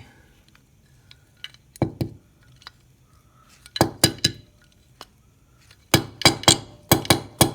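Metal carburetor parts clinking and tapping as the carburetor is worked apart by hand, in three groups of sharp clinks, the busiest near the end.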